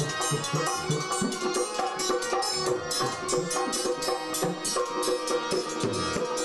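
Indo-Caribbean local classical music: a dholak hand drum and a dhantal, a steel rod struck with a U-shaped metal beater, keep a brisk steady rhythm under sustained held melody notes.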